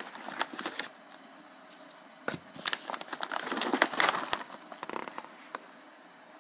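Foil-lined plastic treat pouches crinkling and rustling as they are handled in a cardboard box: a short burst, a pause, then a longer, louder stretch that peaks about four seconds in.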